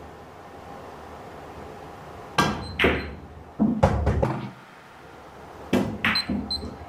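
Pool balls being struck and colliding on a pool table: two sharp clicks about two and a half seconds in, a run of heavier knocks around the four-second mark, and another quick series of clicks near the end.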